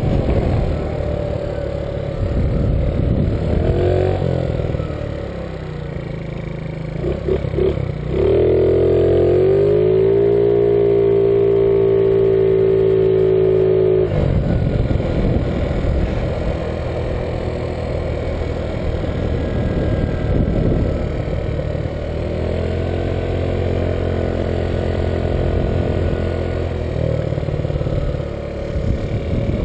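Small motor scooter engine running under way, speeding up with a rising pitch about eight seconds in and holding a steady loud note. It cuts off abruptly, then picks up and eases off again later.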